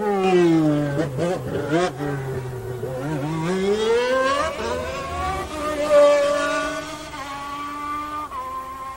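A 1991 Formula One car's engine at high revs: its pitch falls under braking with quick throttle blips on the downshifts, then climbs steadily as the car accelerates, with a drop in pitch at an upshift near the end.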